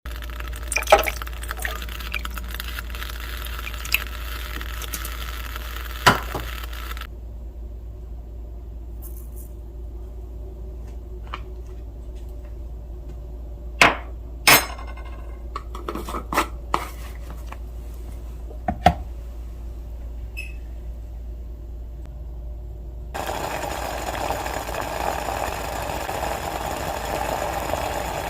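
Kitchen sounds of tea being made: sharp clinks and knocks of utensils against dishes, one of them ringing on about halfway through, and a steady rush of liquid over the last few seconds.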